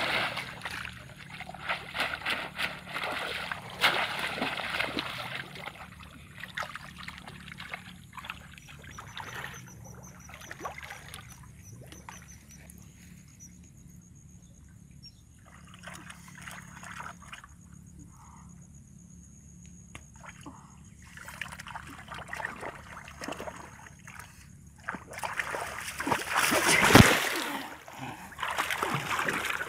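Shallow muddy water splashing and sloshing as someone wades and gropes with their hands. The splashing is busier at the start, goes quieter through the middle, picks up again near the end, and there is one sharp thump near the end.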